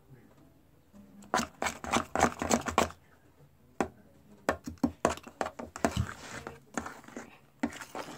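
Homemade slime being stirred and worked in a container: a fast run of sticky, wet clicks starting about a second in and lasting under two seconds, then scattered clicks after a short pause, as the slime thickens.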